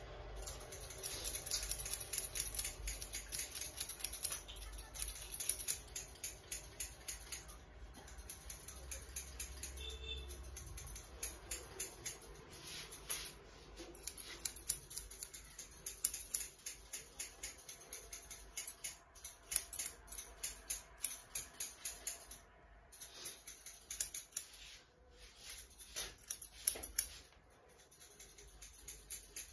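Barber's scissors snipping hair in runs of quick cuts, broken by brief pauses.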